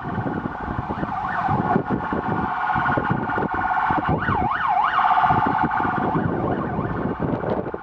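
Fire engine siren wailing, breaking into a few fast up-and-down yelps about four seconds in and cutting off about six seconds in.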